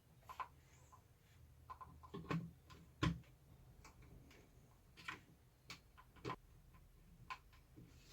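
Scattered light clicks and knocks of plastic tower-fan parts being handled, irregularly spaced, the loudest about three seconds in.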